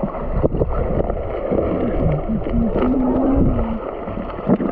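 Muffled underwater sound from a camera held below the surface of a river: dense low rumbling and bubbling water, with a couple of knocks. In the middle a muffled voice-like tone wavers for about two seconds.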